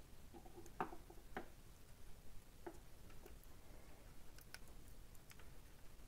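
Black electrical tape being wrapped by hand around a soldered wire splice: faint, scattered clicks and small crackles of the tape and wire being handled.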